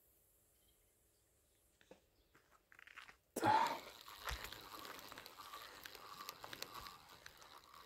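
Near quiet at first. About three and a half seconds in, a sudden thump starts a close, dense crackling and rustling as a fishing rod and reel are handled and cranked to retrieve a castable sonar fish finder.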